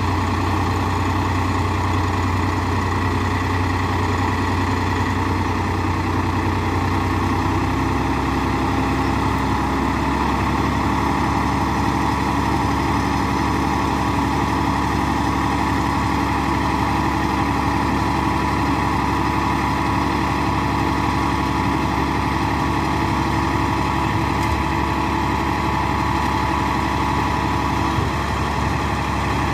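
Tractor engine running steadily while it powers the hydraulic tipper raising a trailer load of sand. Its note changes about 8 seconds in and again about 10 seconds in.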